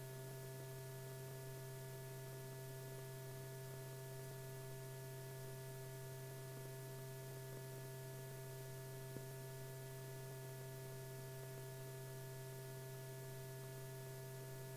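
Steady electrical hum over a faint hiss, the background of an old film soundtrack, with one small click about nine seconds in.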